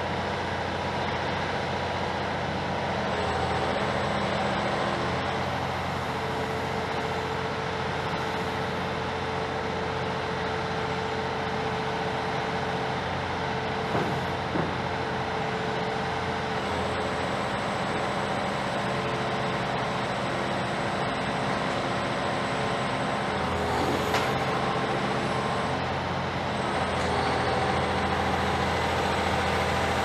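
Heavy diesel demolition machinery running steadily at a working pitch, with engine and hydraulic tones that shift up and down a few times. Two short knocks come about halfway through and one more a little later.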